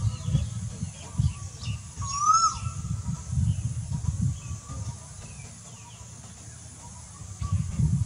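A bird gives one clear whistled call that rises and falls, about two seconds in, with a few faint chirps around it, over a low rumbling noise that swells and fades.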